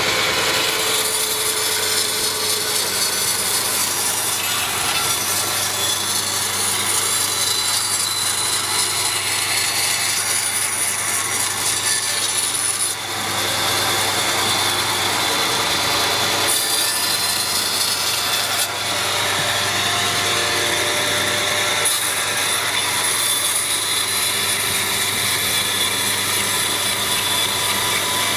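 A power tool working wood: a steady, loud rasping noise that dips briefly about 13 seconds in and again near 19 seconds, over a constant low electrical hum.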